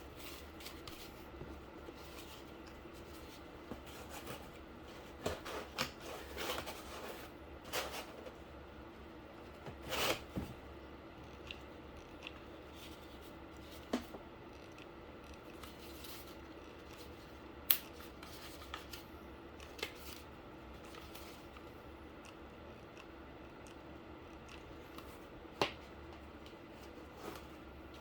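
Quiet, intermittent handling sounds of cardboard and tubing being worked by hand: scattered rustles and scrapes with a few sharp clicks, over a faint steady hum.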